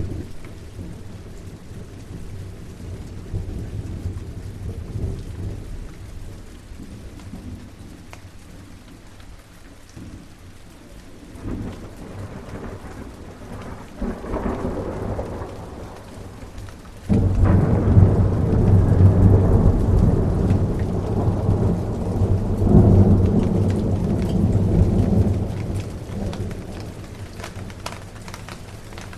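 Steady rain with thunder: a low rumble builds about twelve seconds in, then a sudden loud thunderclap about halfway through rolls on for several seconds and fades away, while the rain keeps falling.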